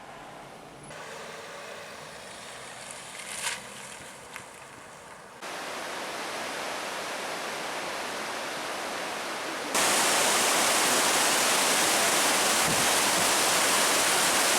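Rushing water of Yosemite Falls and Yosemite Creek at heavy snowmelt flow, a steady even rush. It jumps abruptly louder twice, about five and ten seconds in.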